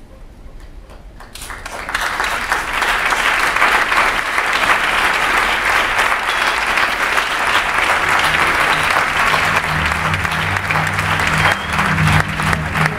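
Audience applauding, rising about a second and a half in and carrying on steadily. A low steady hum joins underneath about eight seconds in.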